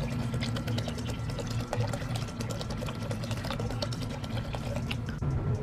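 Liquid poured in a steady thin stream from a plastic jug into a plastic bucket of water, splashing and bubbling continuously as foam builds on the surface.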